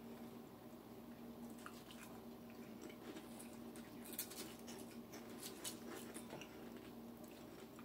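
Faint chewing with a scatter of soft crunches from potato chips being eaten, mostly in the middle few seconds, over a steady low hum.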